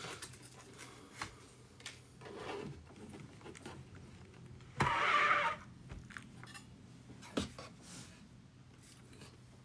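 Handling noise at a desk: a few light knocks and clicks, and about five seconds in a short, loud noisy burst of about half a second. A faint steady low hum sits underneath.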